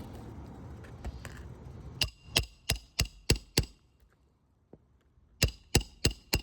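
Hammer blows on metal in two quick runs: six sharp ringing strikes at about three a second, then after a pause four more.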